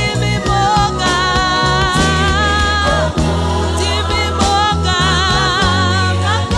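Gospel choir singing held, wavering lines in harmony over a band with a deep bass line and a regular beat.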